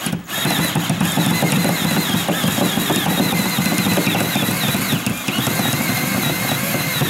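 Power drill on low speed turning a long flexible drill bit inside a wall, boring down through the wooden wall plate. The motor whine wavers as the bit chews through the wood.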